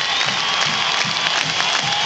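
Large stadium crowd cheering, with a marching band's drums beating steadily underneath at about three beats a second.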